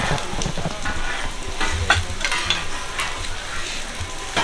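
Mung bean pancakes (nokdujeon) and egg-battered jeon sizzling in oil on a flat griddle. A metal spatula scrapes and clicks against the griddle a few times.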